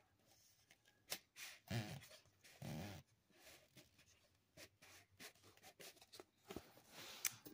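Faint rustles and light taps of a handmade paper greeting card being handled and worked, with two short, faint pitched sounds about two and three seconds in.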